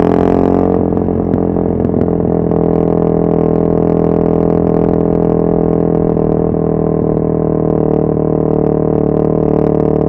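Yamaha MT-03 660's single-cylinder engine and exhaust running at steady revs. The pitch rises slightly during the first second, then holds even.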